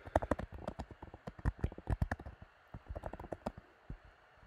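Typing on a computer keyboard: quick runs of key clicks with short pauses between them, stopping shortly before the end.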